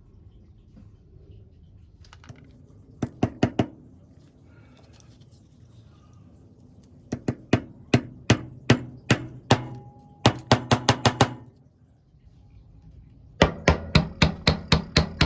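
Runs of sharp, ringing taps or knocks, four to eight at a time, with pauses between the runs.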